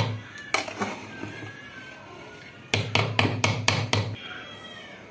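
Metal ladle knocking and scraping against an aluminium pressure cooker while stirring cooked rice. A few clanks come near the start, then a quick run of about seven knocks around three seconds in.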